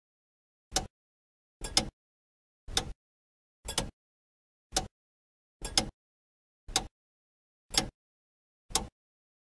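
Clock ticking, one sharp tick about every second with silence between, nine ticks in all.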